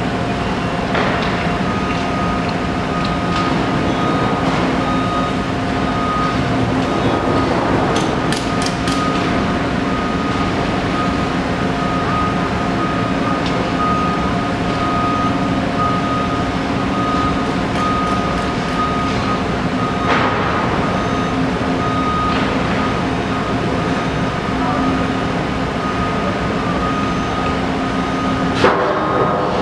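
Steady drone of construction machinery and street traffic, with a constant hum and a held high tone over it, a cluster of sharp metallic clicks about eight seconds in and a single sharp knock near the end.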